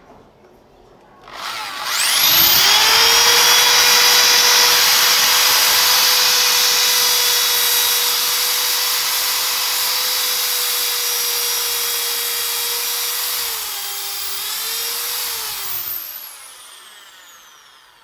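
Bosch electric drill boring a hole into a wooden frame joint: the motor spins up, runs at a steady whine for about fourteen seconds, dips briefly in pitch near the end, then is released and winds down.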